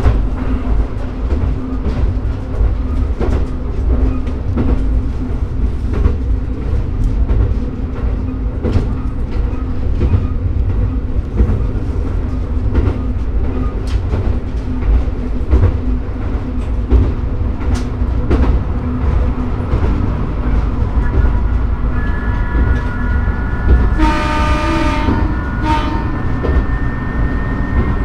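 Diesel railcar running along the track, its engine and wheels rumbling steadily, with wheels clicking over rail joints at irregular intervals. Near the end the horn sounds: one blast of about a second, then a short second toot.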